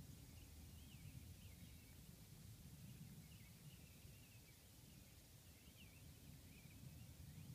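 Faint, distant birds singing: short rising and falling chirps come again and again, over a low, steady background rumble.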